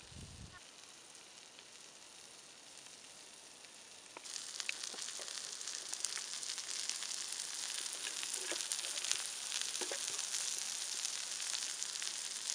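Sliced vegetables (peppers, carrots, broccoli, green beans) sizzling on a hot Himalayan salt block: a steady hiss with small crackles and pops, starting about four seconds in after a quieter stretch.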